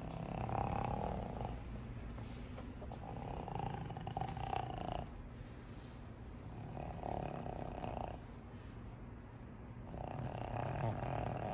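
A pug breathing noisily through its short, flat-faced airway: four long, drawn-out breaths, roughly one every three seconds.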